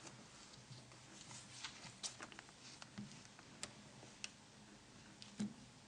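Faint, scattered light clicks and taps, a few over several seconds with the firmest one near the end: small plastic parts of a mobile phone being handled on a workbench.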